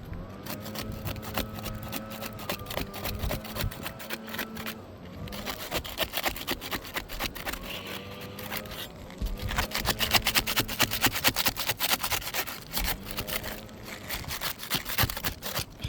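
Fast, repeated scraping and rubbing of a tool on asphalt roof shingles, loudest in the second half.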